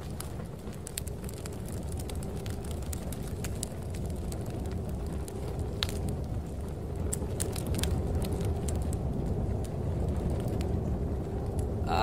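Crackling fire ambience: scattered sharp pops and snaps over a steady low rumble of snowstorm wind, slowly swelling in level.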